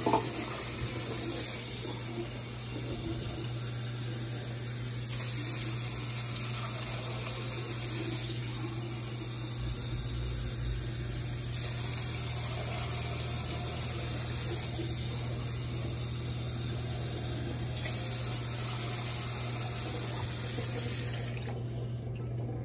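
Water pouring steadily into a slow cooker crock of cubed red potatoes, a continuous splashing stream that stops suddenly about a second before the end.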